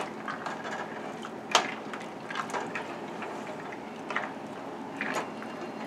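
Pot of soup simmering on the stove with pasta just added: a steady faint hiss, with a few light knocks about one and a half, four and five seconds in.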